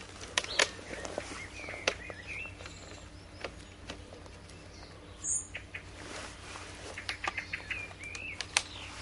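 Sharp clicks and knocks of a bipod being handled and fitted onto an airsoft sniper rifle. Small birds chirp a few times in the background.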